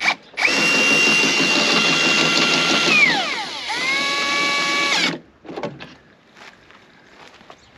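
Cordless drill driving a caravan's corner stabiliser leg winder up, its motor whining steadily for about four and a half seconds. About three seconds in, the pitch falls, then it runs on at a lower speed before stopping.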